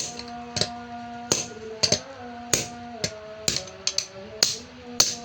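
Sharp hammer taps on metal, roughly two a second at an uneven pace, over background music with held notes.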